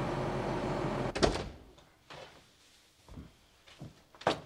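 A steady machine engine hum, heard inside its cab, cuts off about a second in with a sharp knock. A quiet room follows with a few faint clatters and one short sharp knock near the end, like a door.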